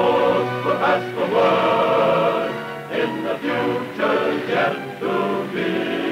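Closing theme song: a choir singing held chords over instrumental backing, a march about taking a submarine down to dive.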